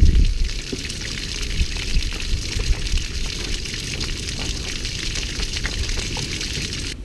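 Garden-hose water spraying out around the flush muffs on a MerCruiser sterndrive and splattering onto gravel ground in a steady splash. This is the flushing supply running to feed the engine cooling water before it is started.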